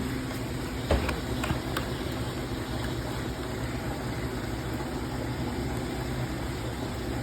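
Steady low hum and hiss of background noise, with a light knock about a second in.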